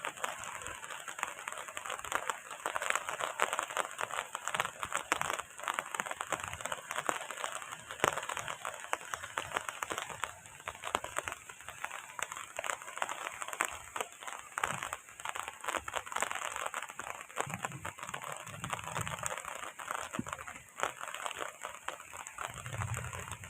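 Heavy rain: a dense, steady patter of many drops striking a hard surface close to the microphone.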